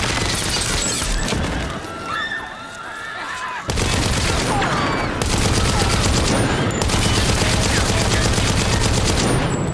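Heavy gunfire: a dense volley of rapid shots that eases off a little after about two seconds, then grows louder and denser from about four seconds in until it stops shortly before the end. Horses whinny over the shooting.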